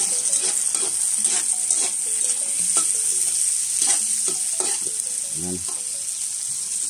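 Garlic, onion and freshly added tomatoes sautéing in hot oil in a wok: a steady sizzle with irregular scrapes and taps of a utensil stirring against the pan, cooking the tomatoes down into the garlic and onion.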